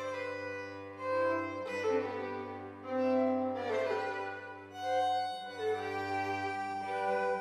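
Chamber string orchestra playing: violins carry held notes that change every second or so over a steady low line from the cellos and double bass.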